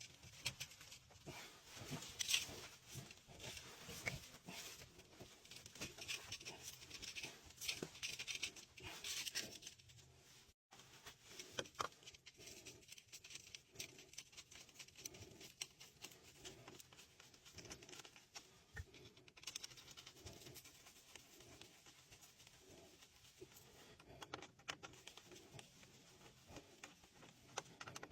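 Faint, irregular scratching and scraping with many small clicks, as of a hand tool working a hard surface. It is busiest for the first ten seconds, cuts out for an instant, then goes on more sparsely.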